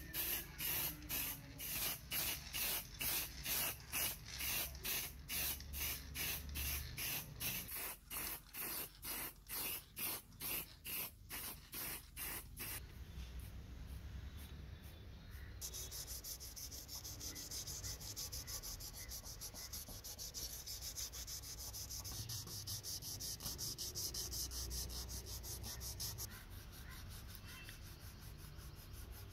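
An aerosol spray-paint can being shaken, about two or three rattling strokes a second for some twelve seconds. Then a steady hiss of paint spraying for about ten seconds, and near the end a fainter rubbing of sandpaper on the model car's body.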